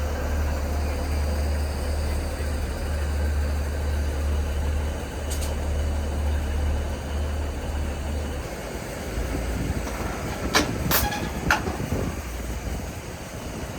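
Diesel train's engine idling with a steady low hum that drops away about eight seconds in, followed by three sharp clicks in quick succession near the end.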